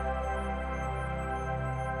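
Background music: a held ambient chord over a low drone.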